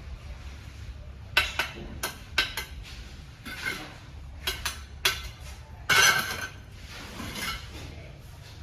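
Irregular sharp metallic clinks and knocks of masonry work on a partition wall, about a dozen strikes spread unevenly. The loudest is a longer scraping strike about six seconds in.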